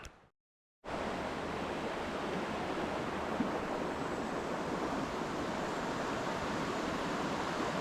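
Steady rushing of river water flowing over rocks, cutting in after a moment of dead silence near the start.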